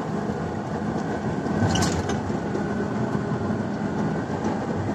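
Turbocharged diesel engine of a 45-tonne BelAZ mining dump truck running steadily as the truck drives along, heard inside the cab. There is a single sharp click about two seconds in.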